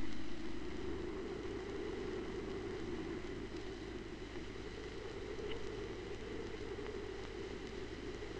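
Faint, steady noise with a low hum and no distinct events: the background noise floor of an old archival film soundtrack.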